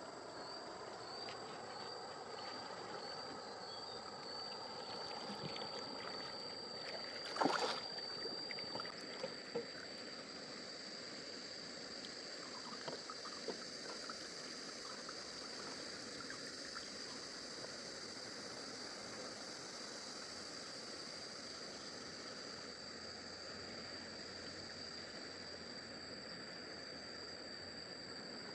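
Water lapping and trickling under a steady, high-pitched insect drone, with one sharp knock or splash about seven and a half seconds in and a few lighter ones after it.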